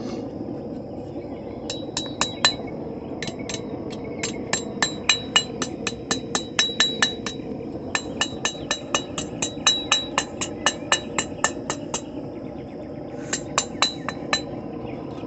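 Blacksmith's hammer striking hot steel on an anvil in several runs of quick, ringing blows, about four a second, with short pauses between runs, over a steady low background noise.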